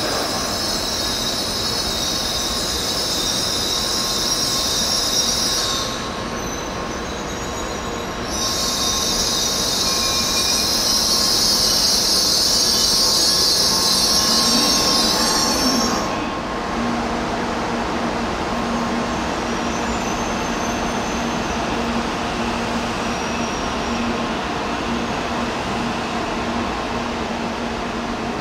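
Tokaido Shinkansen N700-series train running past at speed: a loud rushing hiss with a high whine for about six seconds, a brief dip, then louder again for about eight seconds. About halfway through it falls away to a steadier, quieter rush with a low steady hum.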